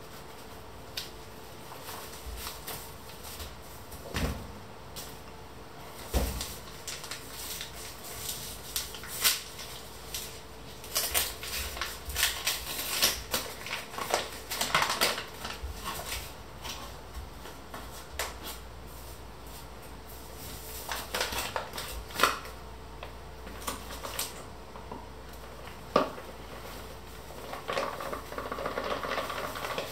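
Kitchen handling sounds: a paper flour bag rustling, with scattered light knocks and clicks against a stainless steel bowl. Near the end, flour pours from the bag into the bowl with a soft rushing sound, over a faint steady hum.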